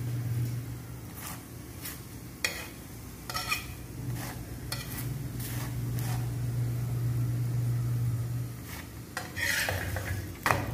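Slotted steel spatula scraping and tapping against a flat pan as an oiled aloo paratha is pressed and turned, in short, irregular strokes over a steady low hum.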